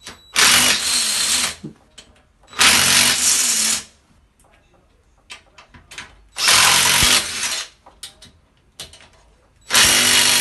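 Cordless drill-driver running in four short bursts of about a second each, driving screws that fix a boiler's metal mounting plate to the wall.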